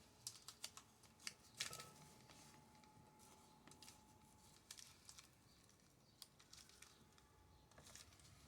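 Near silence with faint light clicks and taps of small objects being handled, most of them in the first two seconds, and a faint steady tone in the background.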